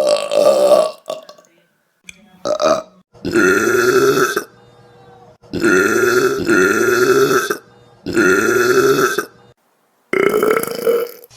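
A string of loud, drawn-out human belches, about six in a row with short pauses between, several of them looking like the same burp played again.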